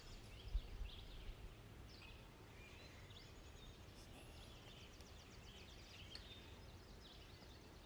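Faint woodland birds calling: scattered short chirps and a fast, high trill, over a low rumble of wind or handling that is strongest in the first second or so.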